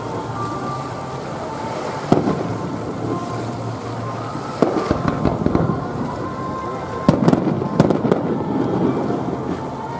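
Aerial firework shells bursting: a sharp boom about two seconds in, another around five seconds in, then a quick cluster of bangs about seven to eight seconds in.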